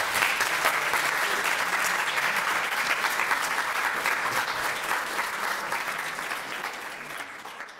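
Audience applauding: dense clapping that holds steady, then slowly dies down near the end.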